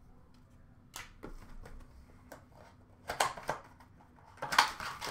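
Trading cards and their plastic packaging being handled: scattered short rustles and clicks, the loudest about four and a half seconds in.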